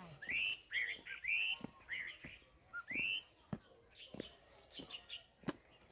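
Birds chirping in short rising-and-falling calls during the first three seconds, over a series of sharp clicks about every half-second to second from pruning shears snipping mandarin stems.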